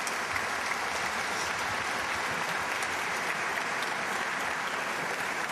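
Audience applauding steadily, welcoming a guest speaker who has just been introduced.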